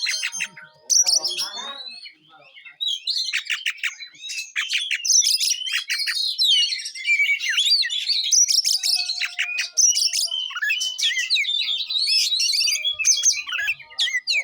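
Oriental magpie-robin (kacer) singing a fast, varied song of rapid chirps, trills and sweeps, nearly without a break after a short lull about two seconds in.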